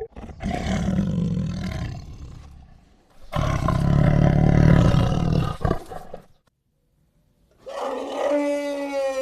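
An animal roaring twice, each deep, rough roar lasting about three seconds. After a short silence, a different animal starts a long, pitched call near the end.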